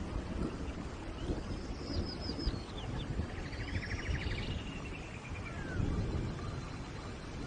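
Songbirds singing short phrases of quick falling notes, with a fast trill about halfway through, over a steady rush of rain.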